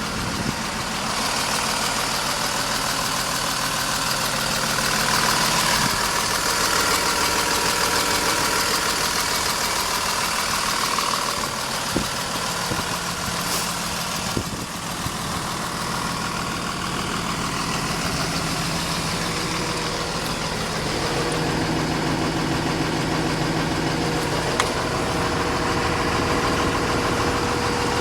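A 5.9-litre Cummins ISB inline-six turbo diesel in a Blue Bird low-floor transit bus, idling at a steady pitch, with a few light clicks.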